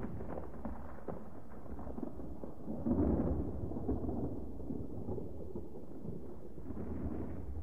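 Wind buffeting the microphone of a camera on a moving vehicle: a low, rushing rumble that swells about three seconds in and again near the end.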